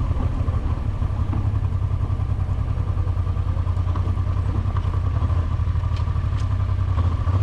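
Honda Transalp XL700V's V-twin engine running steadily at low road speed, a deep, even drone with no revving.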